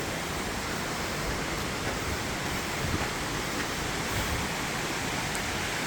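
Waterfall, falling water rushing in a steady, unbroken hiss.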